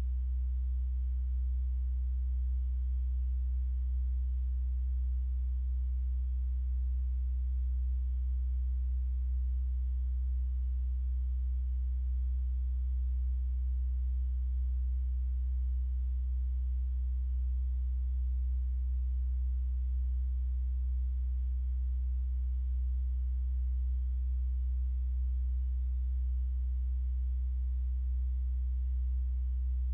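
A steady, unchanging low-pitched hum.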